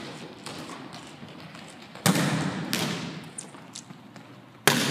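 Volleyball being struck in a passing drill: several sharp slaps of hands and forearms on the ball, the loudest about two seconds in and again near the end, each echoing in the gymnasium.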